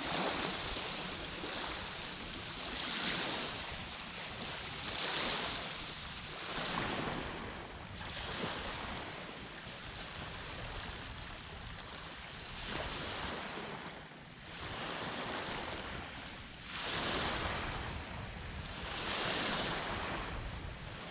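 Small waves washing up on a sandy shore at the water's edge, each wash swelling and fading every few seconds, with light wind on the microphone.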